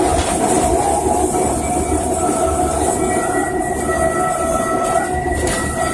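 Calcutta electric tram car running along its track, heard from inside the wooden car: a steady rumble of wheels on rail and car body, with a thin high whine joining about halfway.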